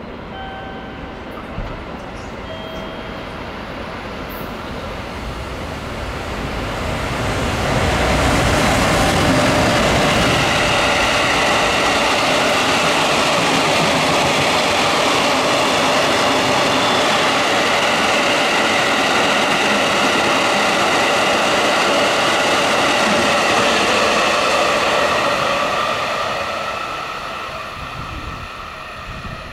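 Freight train of limestone hopper wagons, hauled by an EF510 electric locomotive, running through without stopping. The noise of its wheels on the rails builds as it approaches, holds steady and loud for about eighteen seconds as the wagons pass, then fades as the train recedes.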